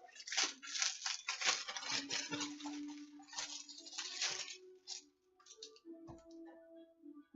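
Packaging around a shirt crinkling and rustling as it is handled and pulled open. The crinkling comes in quick bursts for about four and a half seconds, then thins to a few fainter crackles.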